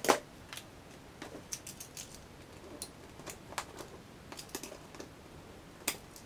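Cork underlay for model railway track being trimmed and fitted by hand: irregular light clicks and taps, with a sharper knock at the very start.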